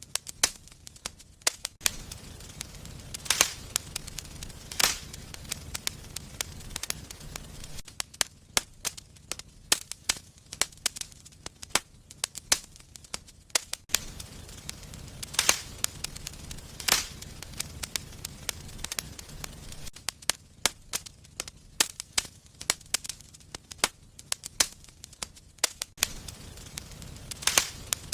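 Wood fire burning in a fireplace, crackling with frequent, irregular sharp pops and snaps over a low steady rumble of the flames.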